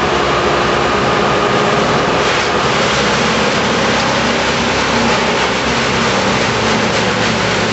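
Heavy machinery engine running steadily during street tree removal: a loud, even mechanical noise, with a higher steady tone that drops away about two and a half seconds in.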